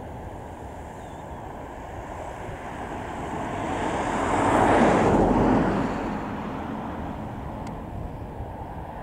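An RAF Tornado GR4's twin RB199 turbofans on approach with gear down. The jet noise swells to a peak about five seconds in, then eases off.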